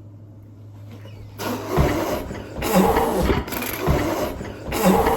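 A woman's loud, raspy outbursts of disgust, about once a second, starting a second and a half in, in reaction to a food put in her mouth; before them a low steady hum.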